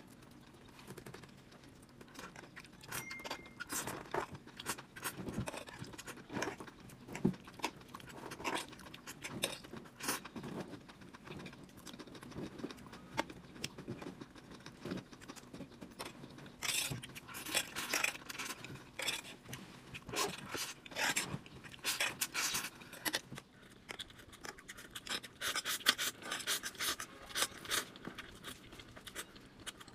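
Close-up eating sounds: noodles and enoki mushrooms being slurped and chewed, with a fork clicking and scraping on the tray. The slurping comes in denser runs in the middle and near the end.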